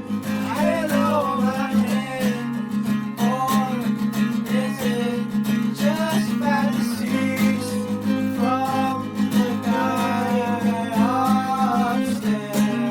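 Song music: a strummed acoustic guitar holding steady chords, with a melody line gliding over it.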